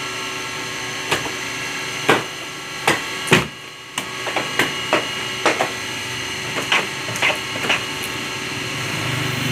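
Stacks of printed paper knocked, slapped and slid on the metal table of a Wohlenberg guillotine paper cutter, a series of sharp knocks followed by lighter clicks and taps, over the steady hum of the cutter's running motor.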